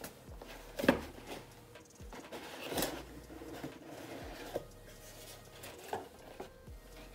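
Cardboard mailer box being handled and opened on a wooden table: a few short knocks and scrapes, the loudest about a second in, as the lid is pulled open.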